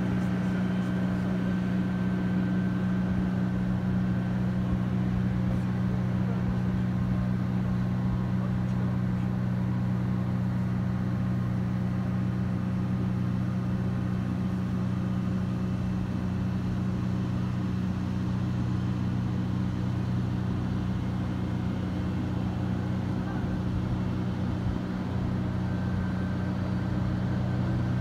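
Steady low mechanical hum of machinery serving a parked airliner at the gate, two strong low tones holding one pitch without a break.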